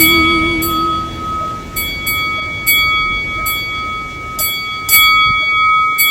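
A small metal bell, such as a temple eaves wind bell, struck again and again at irregular intervals. Each strike rings on at the same set of pitches over a steady rushing noise.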